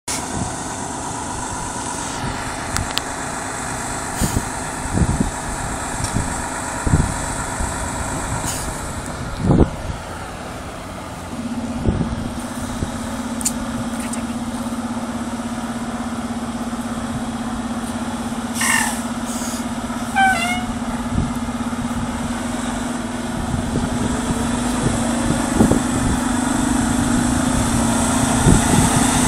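Fire engine's diesel running as the truck moves off, a steady drone setting in about a third of the way through and growing louder near the end as it draws close, with a few scattered knocks.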